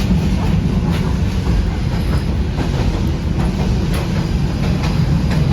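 Alexandria tram running along its rails, heard from on board: a steady low rumble with scattered clicks from the wheels.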